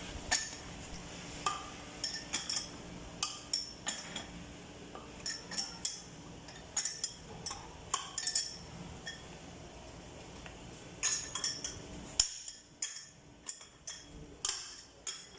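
Metal hand tools clinking and tapping irregularly against metal parts, over a steady low hum that cuts off suddenly about twelve seconds in.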